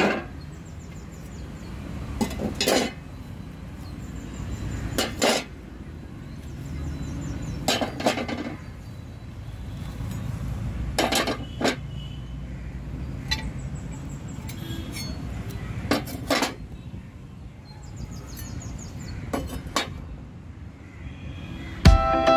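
Steel meat-cleaver blades clinking as they are set down one by one on a rusty steel tray, a sharp metallic clink every few seconds.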